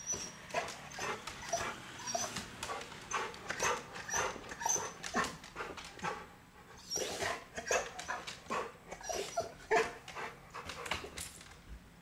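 Chow Chow whining in quick short bursts, about three or four a second, pausing for about a second midway: the dog is worked up over a chipmunk it can see outside the glass door.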